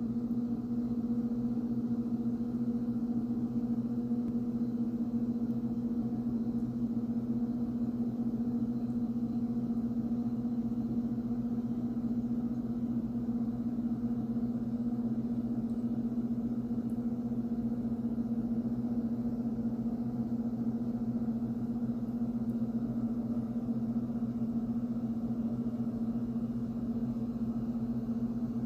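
A steady low hum on one unchanging pitch, with fainter overtones, like a running appliance or electrical hum.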